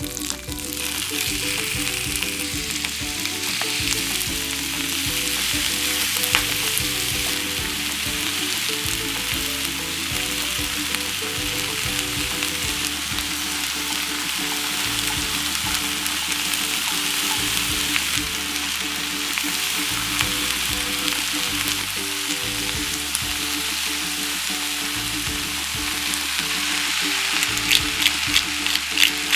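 Food frying in a hot pan for a beef pepper rice dish, a steady sizzle throughout, with a run of sharp clicks near the end.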